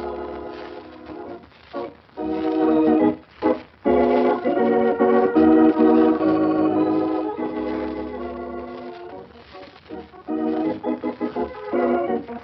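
Organ music playing held chords in several phrases, broken by short pauses: a radio serial's theme or bridge music.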